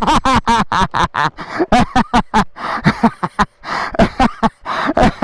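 A man laughing in quick, repeated bursts, several a second.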